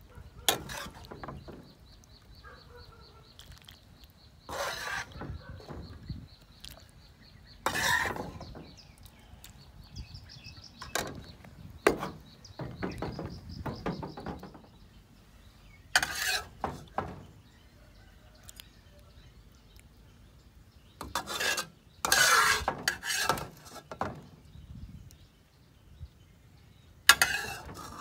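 A metal spatula clanking and scraping against a wok and an enamel serving tray as sauce is scooped out and spooned over the dish, in scattered bursts of knocks and scrapes. A thin, high, steady trill runs in the background through the first half.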